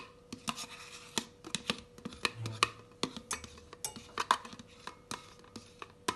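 A spoon scraping and tapping inside a plastic tub to empty out the last of the whipping cream: a run of irregular clicks and scrapes, with a faint steady hum underneath.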